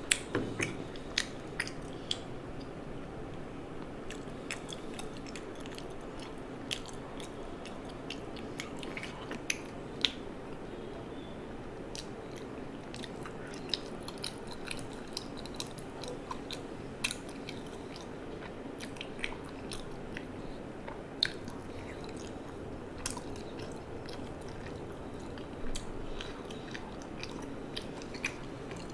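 Close-up chewing and biting of food, with scattered short crunchy clicks over a steady background hum.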